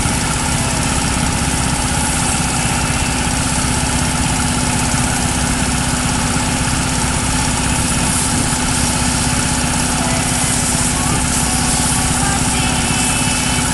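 An engine running steadily at a constant speed, with a dense, even hiss over it.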